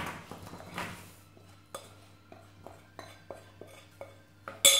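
Dried fruit and nuts being tipped out of a ceramic bowl onto baking paper: a run of light knocks, then a sharp crockery clink near the end.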